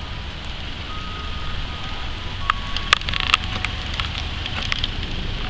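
Two diesel locomotives approaching slowly side by side, their engines a steady low rumble. Thin squealing tones come and go, and a cluster of sharp clicks and rattles falls about three seconds in.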